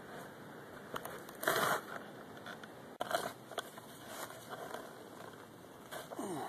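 Digging into turf and soil: a series of crunching cuts and scrapes as earth is broken up and lifted out, the loudest crunch about one and a half seconds in.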